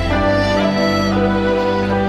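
Background music: a slow, sad Chinese pop ballad in an instrumental passage between sung lines, with sustained string-like chords.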